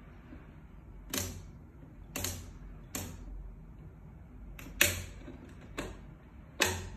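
Six sharp clicks, irregularly spaced about a second apart, the two loudest in the second half.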